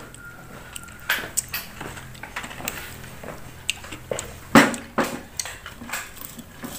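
Close-up mouth sounds of a person chewing: irregular wet clicks and crunches, with a sharper crunch about four and a half seconds in.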